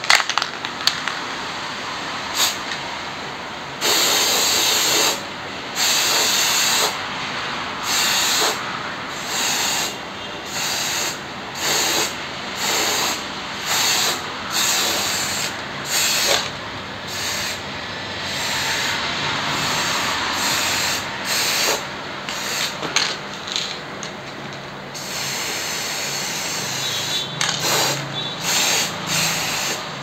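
ABRO aerosol spray paint can hissing in many short bursts of about a second each, with brief gaps between them, as paint is sprayed onto a freezer box. Short clicks and rattles come before the spraying starts and again near the end.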